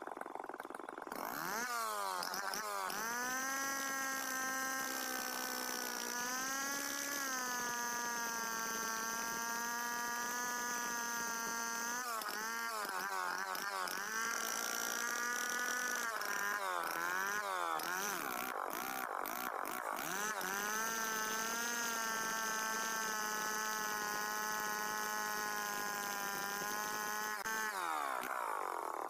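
Large two-stroke chainsaw revved to full throttle about a second and a half in and sawing into a tree trunk. Its pitch dips and recovers several times as the chain bogs in the cut. Near the end the throttle is let off and the pitch falls.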